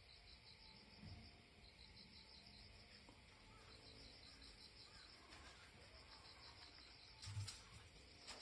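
Near silence: faint background ambience with a soft, rapid, even high chirping, and one brief soft thump near the end.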